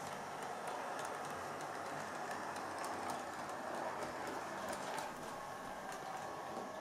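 Model Class 105 two-car DMU running up an incline on model railway track: a steady motor whirr with faint, irregular clicks from the wheels on the rails.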